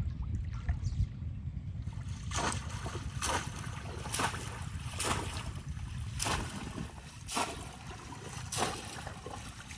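Water splashing in shallow water, sharp splashes repeating about once a second from a couple of seconds in, over a steady low rumble.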